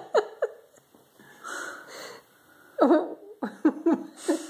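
A person laughing in short, squeaky, wheezing bursts that fall in pitch: a few at the start, a breathy gasp in the middle, then a quick run of about four or five a second from around three seconds in.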